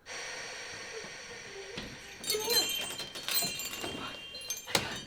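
A chime-like ringing that starts abruptly, followed about two seconds in by people's voices and a sharp knock near the end.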